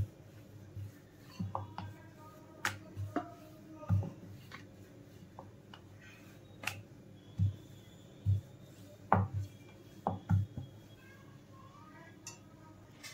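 Wooden rolling pin and round wooden rolling board giving scattered dull knocks and taps as a roti is rolled out and handled on the board.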